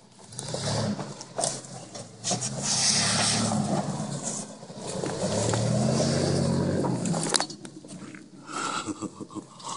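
2001 Toyota 4Runner's 3.4-litre V6 working under load as the stock SUV crawls over rock ledges, its note rising and falling with the throttle, with occasional knocks and scrapes from the tyres and body on rock. The engine drops away after about seven seconds as it pulls off up the trail.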